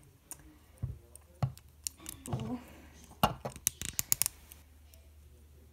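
Plastic LEGO parts clicking and snapping as the model's joints are pulled and folded by hand, with scattered single clicks and a quick cluster of sharp clicks about three to four seconds in.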